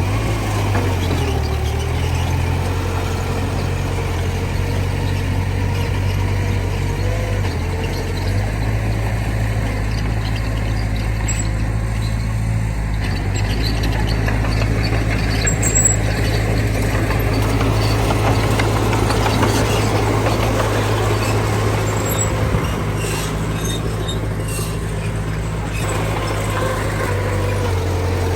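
Heavy diesel earthmoving machinery running steadily with a low engine drone. The engine note shifts a few times, and a thin whine and a few squeaks and clinks sound over it.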